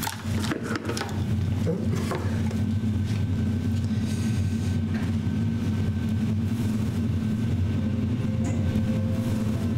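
A low, steady droning music bed, with a few light clicks and rattles in the first two seconds.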